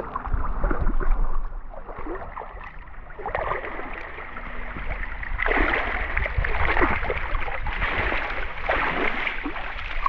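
Shallow sea water splashing and sloshing as a person wades through it, picked up by a camera held at the waterline so the water also laps against the housing. The splashing gets louder and busier from about halfway through.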